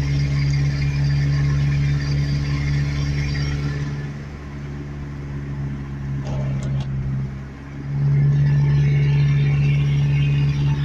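Truck engine running with a steady drone that drops quieter for a few seconds midway, with a few light clicks, then comes back louder about eight seconds in.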